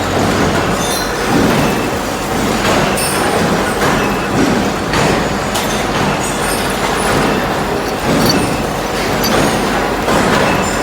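Four-spindle drilling machine running while drilling scaffolding components: a loud, steady mechanical din that swells and eases every second or so, with faint high squeals.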